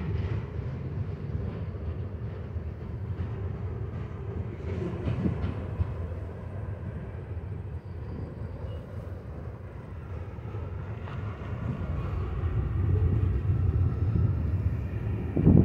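Freight cars of a BNSF manifest train rolling past on a curve: a steady low rumble of steel wheels on rail that grows louder over the last few seconds.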